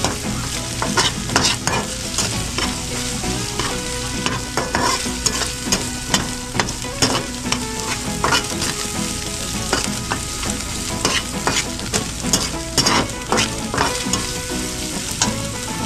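Corned beef with egg sizzling as it fries in a pan, while a spatula stirs it in repeated scrapes and taps against the pan.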